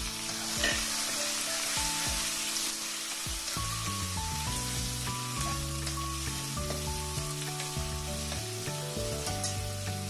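Chopped onions sizzling in hot oil in a steel kadai, stirred and scraped with a steel ladle, fried freshly added on their way to golden brown. Background music of held notes plays underneath from about four seconds in.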